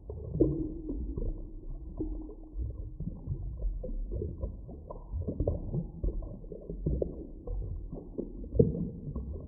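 Muffled underwater ambience: a low, rumbling wash with irregular bubbling surges. About half a second in, a faint held low moan starts and lasts a couple of seconds.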